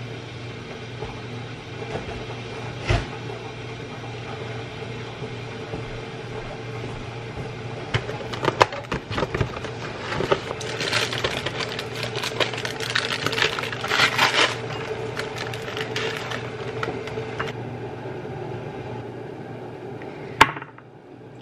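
Dry cereal poured from its box into a bowl: a dense rattling patter lasting about four seconds, starting around ten seconds in. A steady low hum runs underneath, with a few knocks before the pour and one sharp click near the end.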